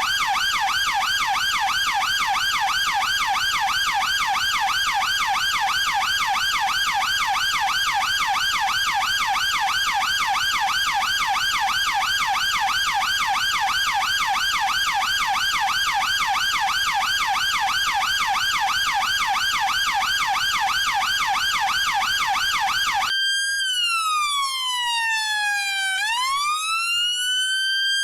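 UK police siren sounding a fast yelp, its pitch sweeping up and down about three or four times a second, then switching near the end to a slow wail that falls and rises.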